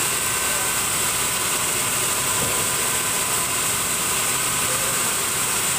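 Large band sawmill running steadily, with a constant high hiss over its motor noise.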